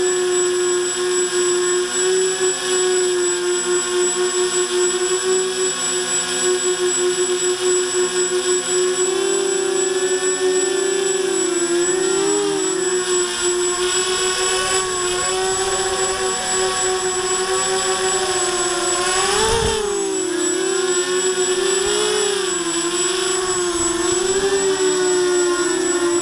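Walkera Runner 250 quadcopter's four brushless motors and propellers whining in flight, heard from close on the airframe. The steady pitch begins to waver up and down with throttle corrections about ten seconds in, with a brief rush of noise around twenty seconds in.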